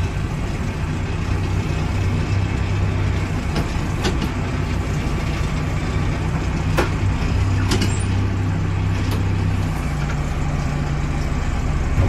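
Case 580 Super M backhoe's diesel engine running steadily while the loader bucket pushes snow, heard from inside the cab as a constant drone. A few sharp knocks come through in the middle.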